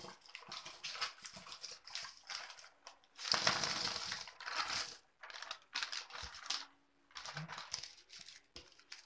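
Wrapped Eclairs toffees pouring out of a plastic packet onto silver paper plates, with wrappers crinkling and candies pattering onto the plates in a series of bursts. The loudest is a dense pour a little over three seconds in, followed by shorter rattles as the sweets are spread by hand.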